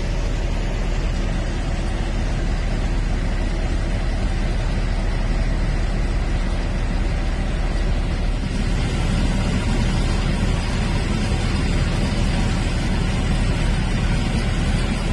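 A vehicle engine idling steadily, heard from inside the cab.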